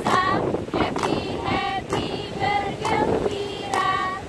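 A group of women singing a cheerful chant together, with sharp hand claps in time.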